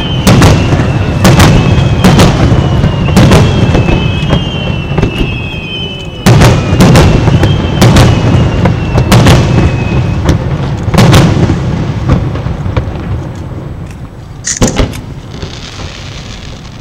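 Aerial firework shells bursting in quick succession, a deep boom about every half second to a second with a rumble rolling on between them. There is a short lull about five seconds in, the bursts thin out after eleven seconds, and a last sharp bang comes near the end.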